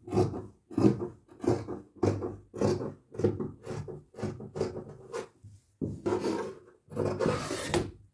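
Scissors snipping through folded cotton tricoline on a wooden tabletop, one crisp cut about every half second. Near the end come two longer, louder stretches of fabric rustling and sliding as the cloth is moved about.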